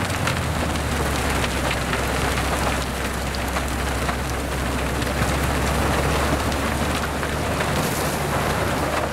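Railway rotary snowplow running through deep snow: a steady low engine drone under an even, loud hiss of snow being cut and thrown out by the spinning impeller.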